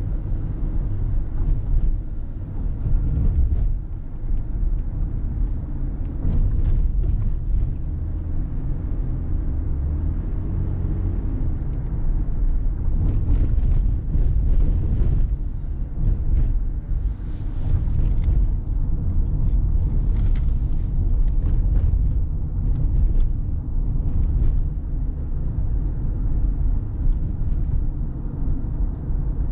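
A car driving: steady low road and engine rumble, with several short hissing swells about halfway through.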